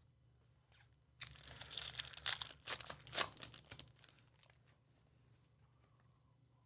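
A foil trading-card pack torn open and its wrapper crinkled. It is a crackling run of about three seconds, starting about a second in, with a few sharper rips near the middle.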